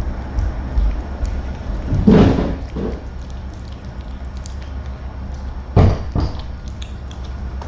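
A steady low mechanical drone, with a loud noisy burst about two seconds in and a sharp thud near six seconds.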